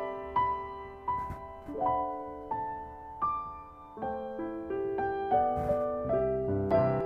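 Background piano music: a gentle melody of single notes struck one after another, each ringing and fading.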